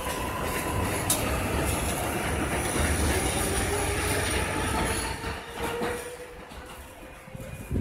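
R188 subway train on an elevated line pulling away along the platform: wheels rumbling on the rails with thin wheel squeal and a slowly rising motor whine. It fades away about six seconds in, and there is a short knock at the very end.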